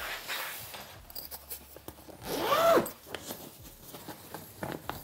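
A zipper is pulled in one quick stroke about two and a half seconds in, its rasp rising and then falling in pitch. Rustling and scraping of the parts being handled goes on around it.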